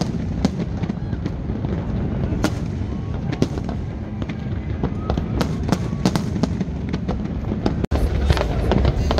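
Fireworks display: a rapid, irregular string of sharp cracks and pops over a continuous low rumble of bursting shells. The sound drops out for an instant near the end and comes back with a heavier rumble.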